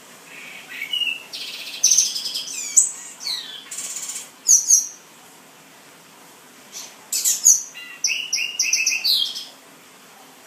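Male black-and-white seedeater singing: two runs of quick, sweeping whistled and buzzy notes, each a few seconds long, with a pause of under two seconds between them.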